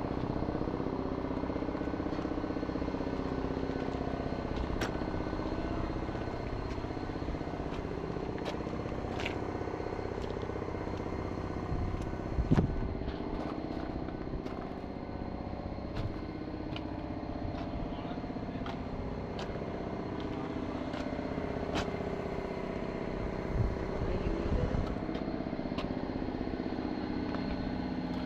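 A motor running steadily, with scattered light clicks and a louder knock about halfway through.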